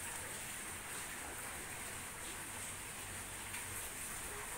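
Steady hiss of easing rain falling onto shallow muddy floodwater.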